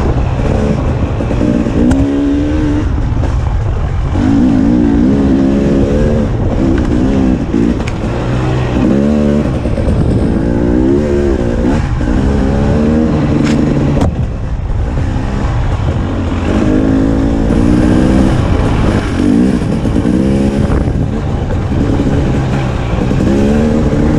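Fuel-injected single-cylinder two-stroke engine of a KTM 300 XC-W TPI dirt bike under way on a trail, revving up and down: its pitch climbs again and again with each burst of throttle. A single sharp knock stands out about fourteen seconds in.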